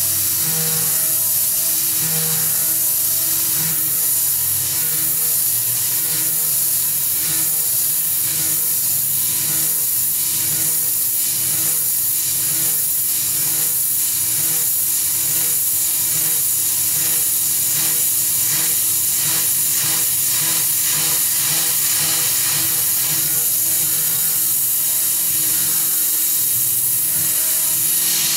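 Tormach 440 CNC mill cutting aluminum with a 3/16-inch carbide end mill on an adaptive toolpath. A steady hiss from the mist coolant lies over a rapid, even ticking of the cut.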